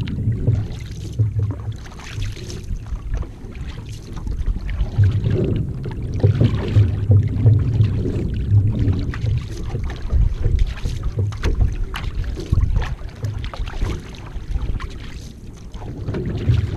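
Paddle strokes of a one-person outrigger canoe: the blade catching and splashing in the water about once a second, with water running along the hull. A low rumble of wind on the microphone runs underneath.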